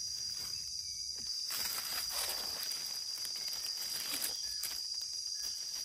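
Steady high-pitched buzz of insects, with a soft rustle about two seconds in.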